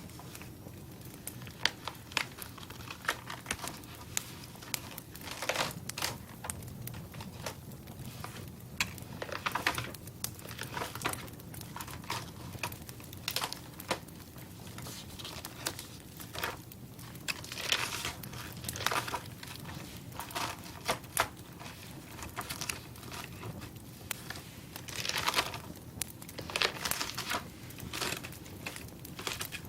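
Irregular crackling and crinkling: sharp snaps and clicks at uneven intervals, bunching into denser crinkly patches every several seconds.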